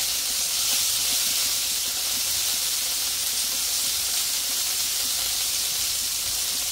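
Hamburger patties frying in their own grease on a Blackstone flat-top griddle: a steady sizzle.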